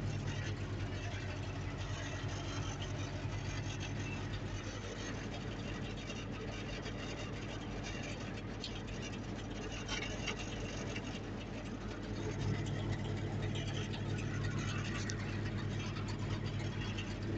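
Mertz 3250 floater's engine idling steadily, heard from inside the cab. Its low hum weakens about four seconds in and comes back up about twelve seconds in.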